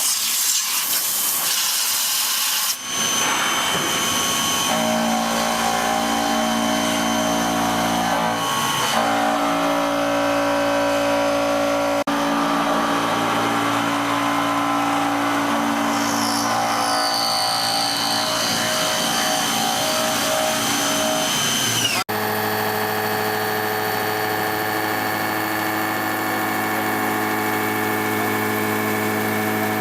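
Kinetic K4000 CNC table's milling spindle running and cutting plate: a steady, multi-toned machine whine over a hiss. The sound changes abruptly about three, twelve and twenty-two seconds in.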